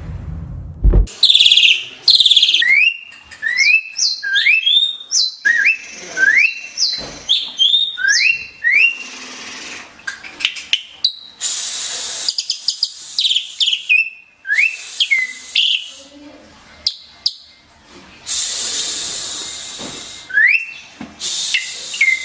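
Asian pied starling (jalak suren) singing: many short rising whistles mixed with harsh, hissing chatter and clicks.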